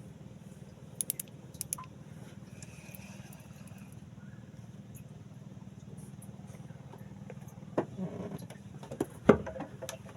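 A boat's engine running low and steady, with a few sharp clicks about a second in and a run of louder knocks and clatter near the end.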